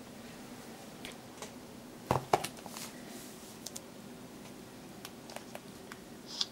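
Handling noise from a smartphone being moved and laid down on a pack of photo paper: two sharp knocks about two seconds in, then a few light clicks and taps. A faint steady hum underneath.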